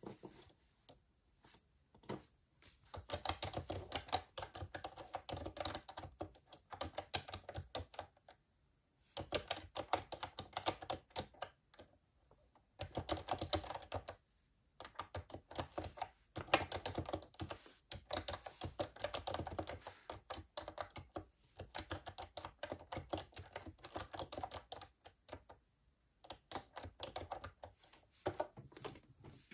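Typing on a computer keyboard: fast runs of key clicks broken by brief pauses, with scattered single keystrokes at the start and end.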